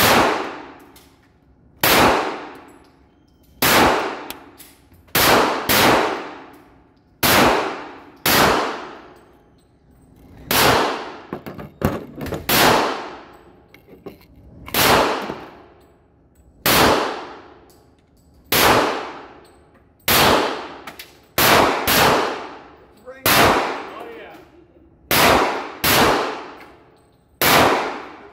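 Handgun shots fired one at a time, roughly one every second and a half, a few in quick pairs; each sharp report rings out and dies away over about a second.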